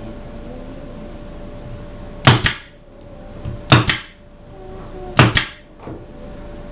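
Pneumatic nail gun firing three times, about one and a half seconds apart, each shot a sharp double snap as it drives a nail into the glued oak pallet boards. A faint steady hum runs underneath.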